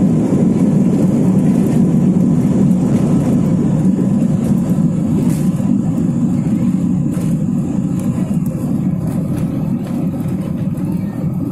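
Jet airliner engines at take-off power heard inside the passenger cabin: a loud, steady low rumble that eases slightly near the end.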